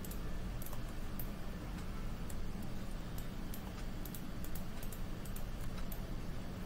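Light, sharp clicks of a computer mouse at irregular intervals, a dozen or so, over a steady low hum of room and microphone noise.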